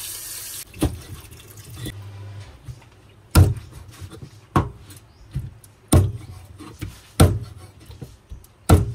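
Tap water running into a sink cuts off under a second in, then a meat cleaver chops a raw whole chicken on a thick wooden chopping board: about six heavy chops, roughly one every 1.2 seconds, with a few lighter knocks between.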